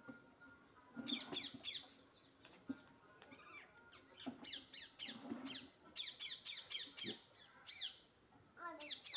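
Ducklings peeping: several quick runs of short, high, falling peeps, with brief pauses between the runs.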